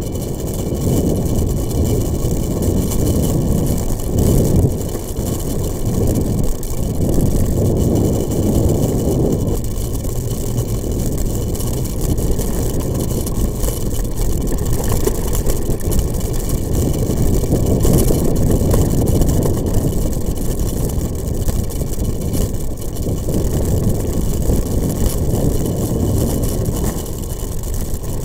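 A vehicle engine running steadily as it travels over a rough dirt track, a continuous low rumble.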